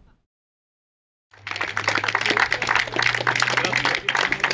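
About a second of silence, then a small crowd clapping and applauding, with a low steady hum underneath.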